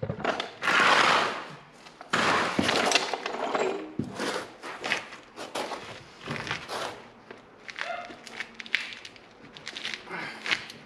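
Hand tools clattering and knocking against a car's front hub and brake assembly while a tight fastener is worked on. Two longer scraping rushes come in the first three seconds, followed by a run of scattered knocks and clicks.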